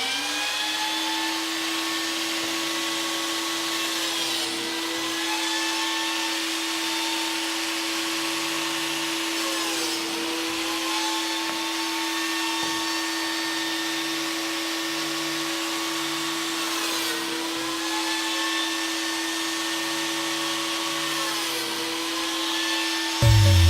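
Biscuit joiner motor running steadily with a constant hum. Its pitch sags briefly and recovers four times, as if under load during cuts.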